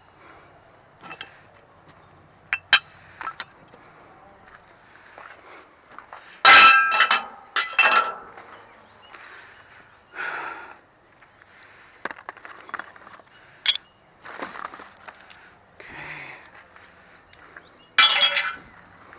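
Pieces of scrap extruded aluminum clanking and rattling as they are handled and loaded, with a cluster of loud ringing clangs about six to eight seconds in and another near the end.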